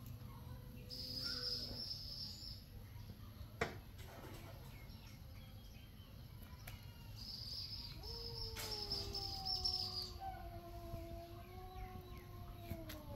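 Outdoor background with high buzzing trills in two bouts and a single sharp click after about three and a half seconds. From about eight seconds a long held tone slowly falls in pitch in the distance.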